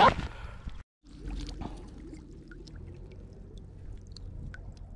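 Shallow lake water sloshing and lapping, a steady low rushing with a few faint small clicks. A brief loud burst of sound opens it, and it drops out for a moment about a second in.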